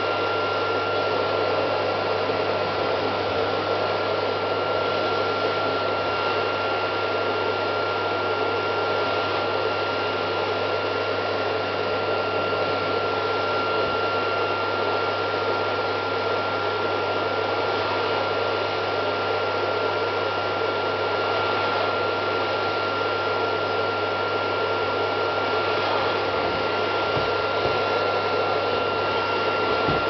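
Vacuum cleaner running steadily, its motor making an unbroken rush of air with a constant high whine on top.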